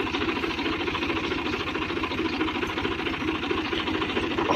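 Ghazi tractor's diesel engine running steadily under load, pulling a 16-disc harrow through the soil to drag it free where it had stuck.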